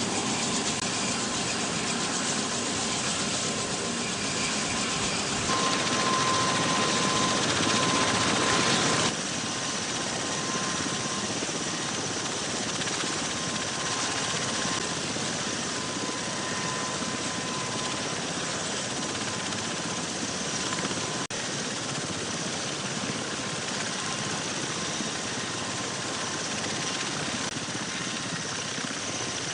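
V-22 Osprey tiltrotor's two turboshaft engines and proprotors running: a steady rushing noise with a thin whine. It grows louder about five seconds in, then drops abruptly to a quieter level about nine seconds in, with another sharp break near the twenty-second mark.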